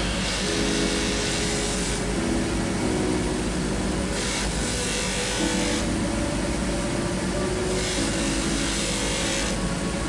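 Bench polishing motor running with a white buffing wheel against a small metal jewellery setting, a steady hum under a rushing hiss. The hiss grows louder twice, about four and eight seconds in.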